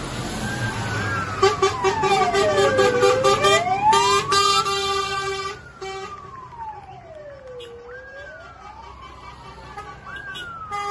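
Fire engine sirens wailing, one rising and falling slowly over about five seconds a cycle. From about a second and a half in until about five seconds in, a fast-pulsing horn-like tone sounds over them, then the sound drops in loudness.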